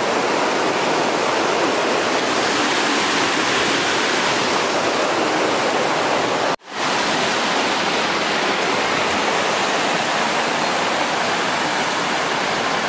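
Fast mountain river rushing over boulders below a footbridge: a loud, steady roar of rapids. It cuts out for an instant about halfway through and comes straight back.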